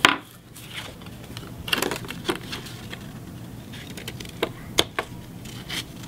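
Handling sounds of craft materials on a wooden tabletop: cardstock, a brass paper fastener and an AA battery being fitted together, giving a scattering of small clicks and taps.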